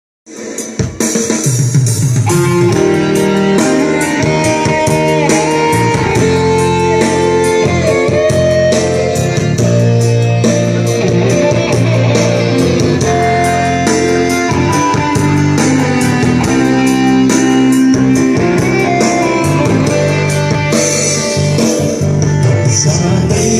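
Instrumental band music: plucked guitar over a drum kit keeping a steady beat, starting about half a second in.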